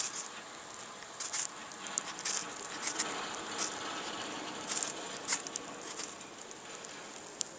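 Small fire crackling in the snow, with irregular sharp pops and snaps over a steady faint hiss.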